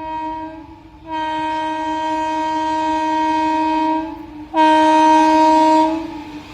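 WAP-4 electric locomotive's horn sounding in three blasts: the tail of one ends just after the start, then a long blast of about three seconds, then a louder, shorter blast of about a second and a half.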